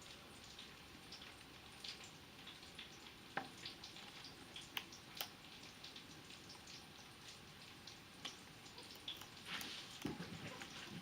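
Faint, scattered clicks and small crunches of an Amazon parrot's beak picking at and nibbling a brussels sprout, with a few sharper taps between about three and five seconds in.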